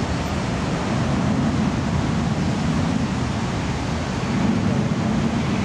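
Steady, deep rushing noise of the Mirage volcano attraction erupting, its gas flames and cascading water running without a break.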